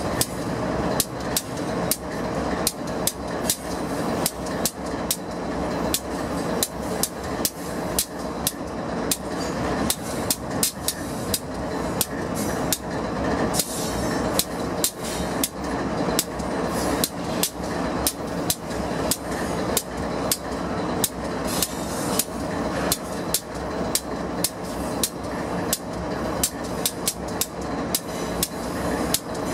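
Double-stack intermodal freight train rolling past, its steel wheels striking the rail in a quick, uneven run of sharp clacks, several a second, over the steady rumble of the passing cars.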